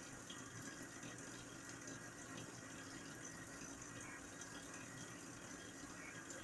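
Kitchen faucet running a thin, steady stream of water into a stainless steel sink, faint.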